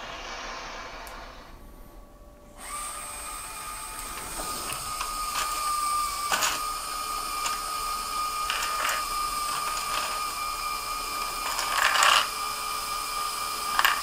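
The electric motors of a LEGO Technic 42100 Liebherr R9800 excavator model whining steadily from about two and a half seconds in as the arm and bucket work, with scattered clicks and clatter of plastic Technic parts as the bucket scoops through a bin of them.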